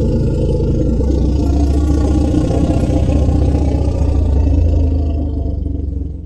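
Indian rhinoceros sound effect: a long, deep, steady rumbling call that fades and stops near the end.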